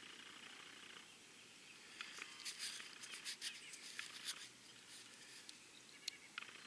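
Faint scratching and crackling: a cluster of small clicks about two seconds in, lasting a couple of seconds, and one more click near the end. These are fingers handling a dirt-covered coin close to the microphone.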